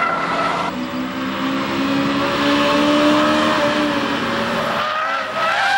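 Sports cars racing at full throttle through a corner: engines held at high revs. The pitch climbs slowly and then eases off, and a short higher whine rises near the end.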